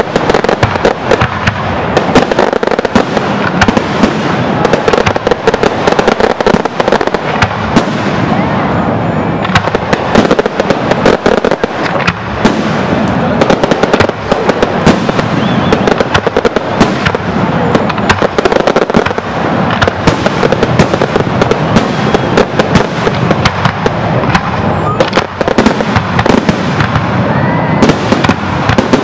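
Fireworks display: aerial shells bursting in quick succession, a dense run of bangs and crackles with no break.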